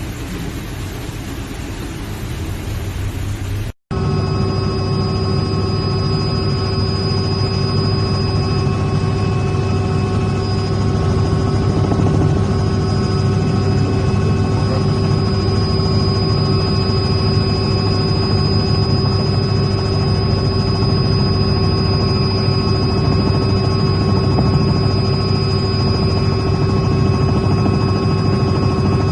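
A rushing noise, then a sudden cut about four seconds in to a steady machine drone. The drone holds several unchanging whining tones, one of them high-pitched.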